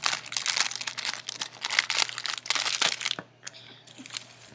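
Clear plastic bag around a squishy toy crinkling as it is handled and set down, stopping about three seconds in.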